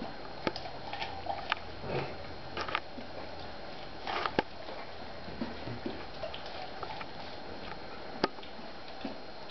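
Akita dog gnawing corn kernels off a cob held out by hand: irregular crunching bites and sharp snaps of teeth, the sharpest about half a second, a second and a half, four and a half and eight seconds in.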